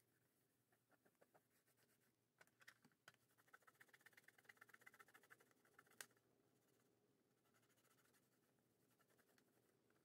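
Very faint rubbing of a microfiber cloth wiped back and forth over a Sony Discman D-E200's casing, in quick strokes that are busiest from about three and a half to six seconds in, with one small tick about six seconds in.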